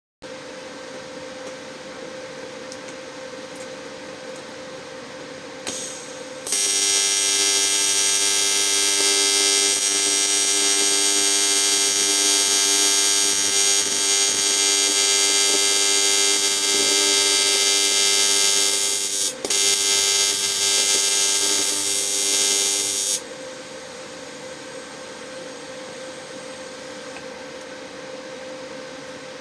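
A welding arc on the cast-aluminium crankcase of a GX200-clone engine, sealing a leak. It buzzes loudly and steadily for about sixteen seconds, with a momentary break about two-thirds of the way through. Before and after it, a welding machine hums steadily.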